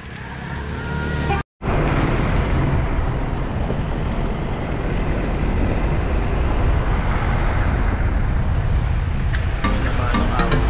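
Steady road and wind noise from a moving car, heaviest in the low range, after a brief dropout about a second and a half in. Music comes in near the end.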